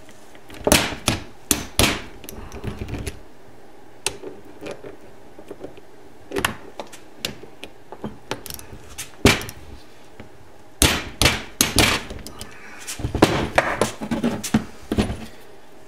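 Torque wrench being worked on the caliper mounting bolts of a motorcycle front brake on a workbench: scattered sharp metallic clicks and knocks in several short clusters as the bolts are brought up to 25 foot-pounds.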